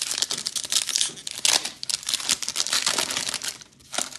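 Foil wrapper of an Optic basketball trading-card pack being torn open and crinkled by hand: a dense run of crackling rustles and tears that eases off near the end.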